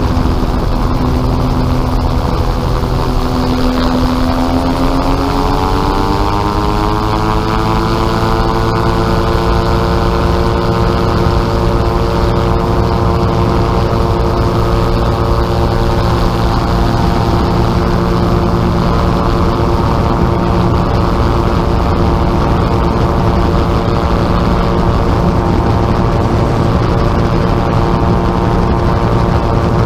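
Gyrocopter engine and propeller during the takeoff roll. The engine note rises in pitch from about four to eight seconds in as power comes up, then holds steady and loud as the craft lifts off.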